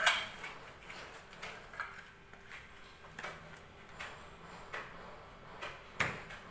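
Floor-tiling work on a sand-cement mortar bed: a sharp knock right at the start and another about six seconds in, with light taps and scrapes between as the mortar is spread and levelled.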